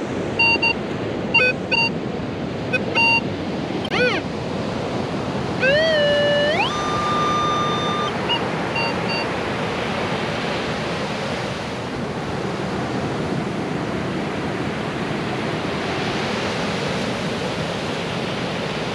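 Minelab metal detector sounding target tones: several short beeps, then a tone that climbs in pitch and holds for about a second and a half, then a few more short beeps. Steady surf wash carries on underneath and is all that is left for the second half.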